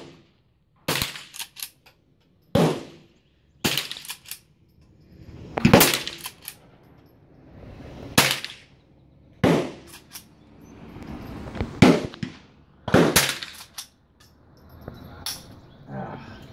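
Lever-action rifle shots fired in a steady string, about ten, one every one to two seconds, each sharp crack followed by a short fading ring.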